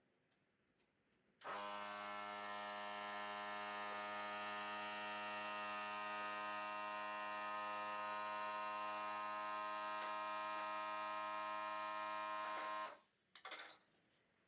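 A steady electric hum with many overtones, switched on about a second and a half in, holding one pitch, then dying away near the end.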